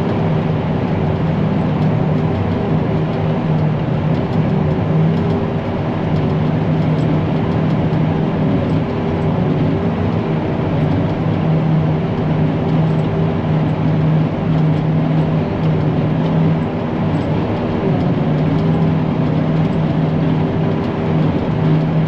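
Self-propelled forage harvester running steadily under load while chopping hay: a continuous engine and machine drone with a constant low hum.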